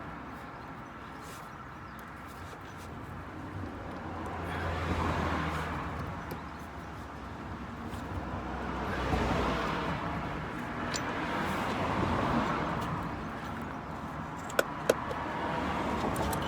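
Rustling and handling noise of hands and tools working among hoses and brackets under a car, swelling and fading several times, with two sharp metallic clicks near the end.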